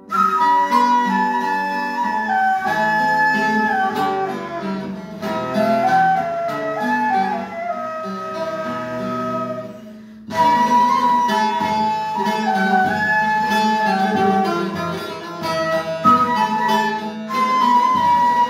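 A ney and a bağlama playing a Turkish folk tune together: the ney carries the melody in long held notes over the bağlama's plucked accompaniment. The music dips briefly about ten seconds in, then the same phrase starts over.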